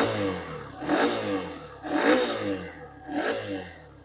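Hero Xtreme 125R's single-cylinder engine revved in quick throttle blips, four times about a second apart, each rising sharply and then dying back toward idle. It is a check for body-panel rattle and vibration noise, and the owner says there is none.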